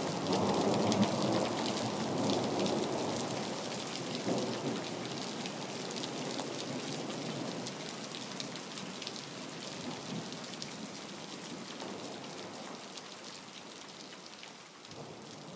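Rain falling, with a low rumble of thunder that dies away over the first few seconds; the whole sound slowly fades out.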